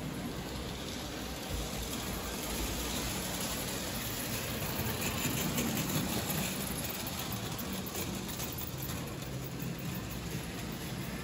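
Märklin H0 model trains running on the layout's track: a steady whir of small electric motors and a rattle of wheels, growing a little louder around the middle as a steam locomotive and its coaches pass close.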